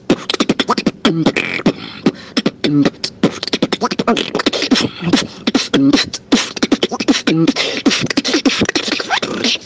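Human beatboxing: a fast, dense run of mouth-made kicks, snares and clicks, with a short pitched vocal bass phrase that comes back about every one and a half seconds.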